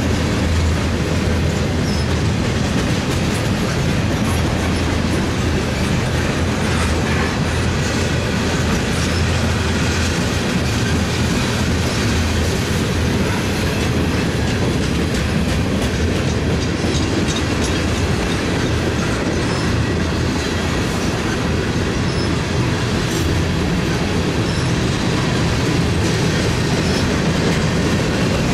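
Freight cars of a mixed freight train rolling past close by: a steady, loud rumble of steel wheels on rail, with the wheels clicking over the rail joints.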